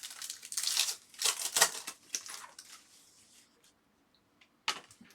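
Trading cards being handled and flicked through by hand: dry rustling with sharp clicks for the first two and a half seconds, then a single click near the end.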